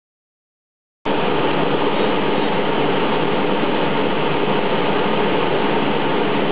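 Kyosho DF-300 1/12 RC snowcat running: a steady mechanical noise that starts abruptly about a second in and holds even throughout.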